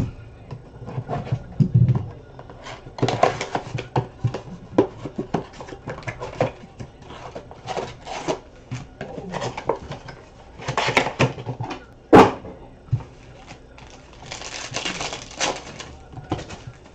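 Trading card packs and their cardboard and plastic packaging being handled and torn open: irregular crinkling, rustling and scraping, with a sharp knock about twelve seconds in.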